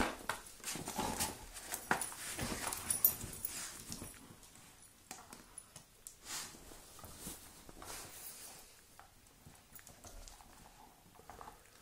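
A Doberman playing with a rope toy: a busy run of knocks and clicks for about the first four seconds, then fainter, scattered clicks as she lies chewing the toy.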